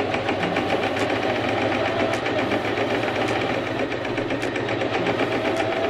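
Messina portable electric sewing machine running steadily, its needle stitching with a fast, even clatter through a very thick stack of eight heavy canvas and denim layers plus two cotton layers. It runs smoothly, without jamming or labouring.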